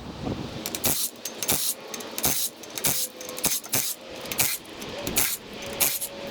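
Irregular sharp metallic clinks and knocks, roughly one or two a second: hand tools and loose car parts being handled and set down.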